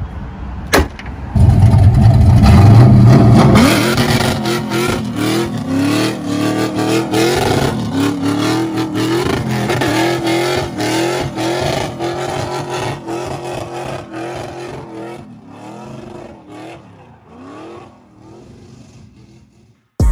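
Pontiac Trans Am's LS V8 held on an MSD two-step rev limiter during a burnout, its note stuttering with rapid, regular cuts. The engine is loudest about a second and a half in, and the sound grows fainter over the last few seconds.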